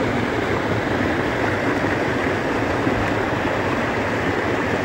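Steady rush of a small waterfall, stream water pouring over rocks close by.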